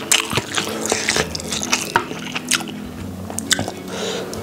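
Wet, sticky squishes and clicks of fingers pressing cooked rice and cheese-sauced food together into a bite by hand, with small mouth smacks from chewing.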